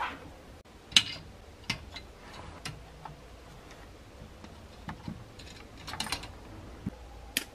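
Scattered, irregular light clicks and taps of hard plastic model-kit parts and sprue being handled, with the sharpest click about a second in.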